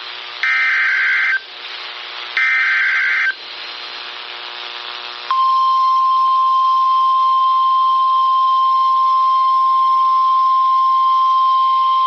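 Emergency Alert System broadcast on NOAA Weather Radio: two harsh, buzzing SAME digital header bursts about a second long and a second apart, announcing a new alert. About five seconds in, the steady single-pitch 1050 Hz Weather Radio warning alarm tone begins and holds.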